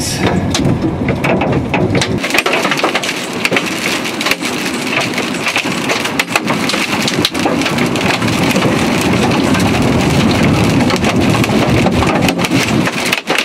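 Hail and rain hammering on the car's roof and windshield, heard from inside the cabin: a dense steady din broken by many sharp cracks of individual hailstones striking.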